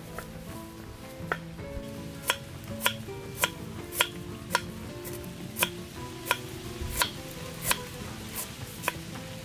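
Sharp knocks of a kitchen utensil striking in a steady rhythm, a little under two a second, over background music.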